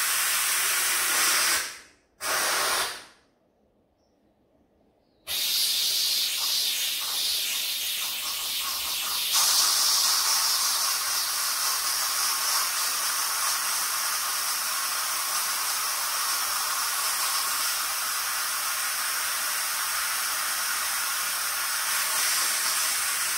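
Steam hissing out of a Philips electric pressure cooker's release valve, held open by hand to let the pressure out after cooking. The hiss stops about two seconds in, comes back briefly, and stops again. It then resumes about five seconds in and runs steadily, a little louder from about nine seconds in.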